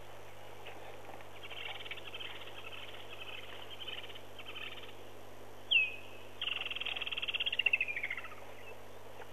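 Animal calls: soft pulsed chirping in the first half, then, a little past halfway, a sharp falling note followed by a fast pulsed trill of about two seconds that grows louder and drops in pitch at the end.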